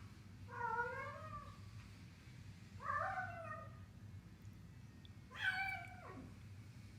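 Domestic cat giving three short meows, about two seconds apart. The first two rise and fall a little in pitch; the last starts higher and drops steeply at its end.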